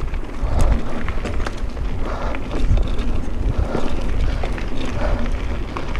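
Specialized StumpJumper mountain bike ridden along a dirt trail: wind rumbling on the microphone, with tyre noise and a steady scatter of clicks and rattles from the bike over rough ground.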